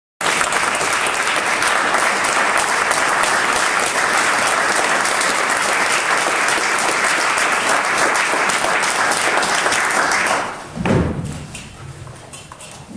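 Audience applauding, dying away about ten seconds in, followed by a few low thumps and shuffling.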